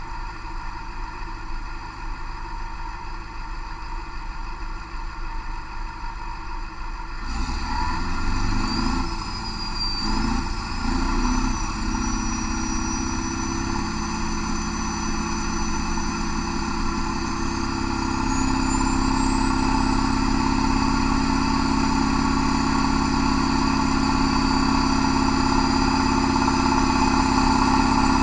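Scania DC16.02 V8 turbo diesel running on an engine dynamometer. It steps up in loudness about seven seconds in, its pitch wavering briefly, then holds steady near 2000 rpm with a high whine over it. It grows louder from about eighteen seconds in as the dynamometer loads it toward full power.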